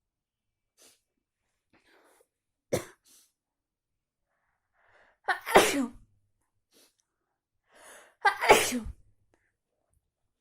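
A person with allergies and a cold sneezing three times: a short sneeze about three seconds in, then two bigger sneezes about three seconds apart, each after a quick in-breath.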